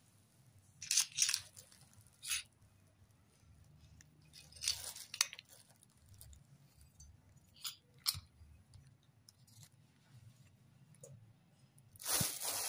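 Short, scattered rustles and scrapes of hands handling painted metal tealight holders and tealight candles on a towel, about eight brief sounds, with a longer cluster near the end.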